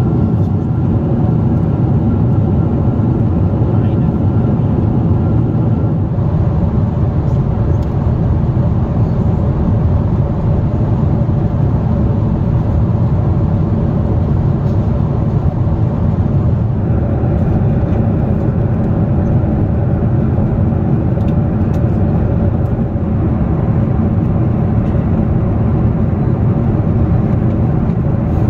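Steady cabin noise of a Boeing 747-8i: its four GEnx-2B jet engines and the air rushing past the fuselage, heard from a passenger seat.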